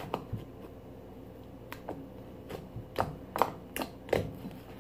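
Homemade slime being handled and set onto a plate: a handful of short, sticky clicks and smacks at irregular intervals.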